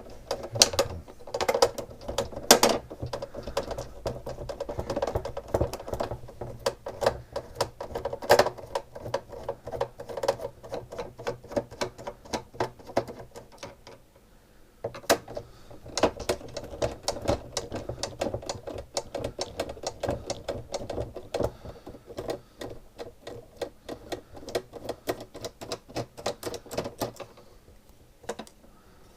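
Screwdriver work on the screws in a SodaStream's plastic base: a rapid, irregular clicking and rattling that pauses briefly about halfway, then picks up again and dies away near the end.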